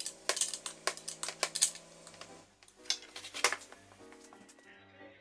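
A ratchet wrench clicking in quick bursts as a hex bolt is tightened, for about the first two and a half seconds; then background music takes over.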